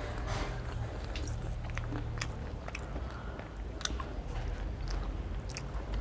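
Close-up eating sounds: chewing and mouth sounds of someone eating soft, watery rice (pakhal bhat) with chicken curry, with many short, irregular clicks and smacks.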